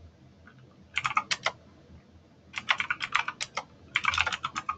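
Computer keyboard typing: three quick runs of keystrokes, a short one about a second in and two longer ones in the second half.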